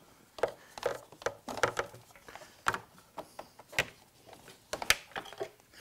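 Irregular clicks and light knocks of a Gen 2 Suzuki Hayabusa's plastic side fairing being worked loose by hand from its clips, with a few sharper snaps toward the middle and later part.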